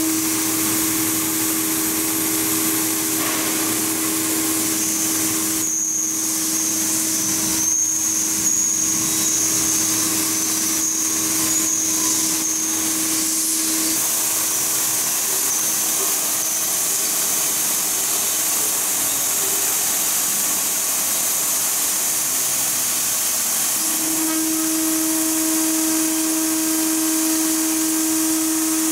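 A CNC router's electric spindle runs with a steady whine while its end mill cuts through metal sheet, over the constant hiss of a mist-coolant air spray. In the first half a high squeal with short rasping breaks comes and goes as the bit cuts. The spindle tone drops back in the middle and comes back strong near the end.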